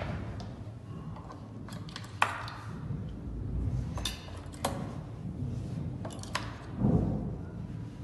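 Scattered small clicks and knocks as AA batteries are handled and snapped into the battery compartment of a fingerprint smart door lock, with a duller knock near the end.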